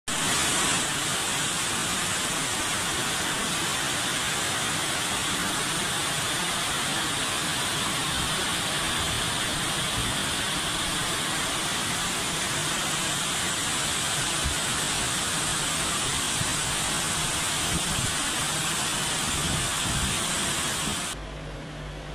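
Torrential rain pouring down in a dense, steady hiss. About a second before the end it cuts abruptly to a quieter hiss with a low hum.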